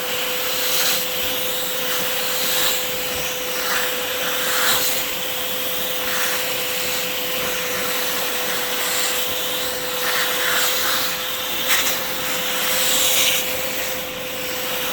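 Bissell portable carpet and upholstery spot cleaner running, its suction motor holding a steady whine while the nozzle draws a soft-drink stain out of a mattress. The loudness swells and eases every second or two as the nozzle is worked over the fabric.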